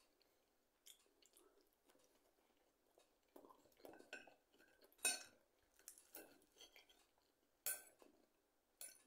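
Faint close-up eating sounds: chewing, and a metal fork clinking against a dish a few times, the sharpest clinks about halfway through and near the end.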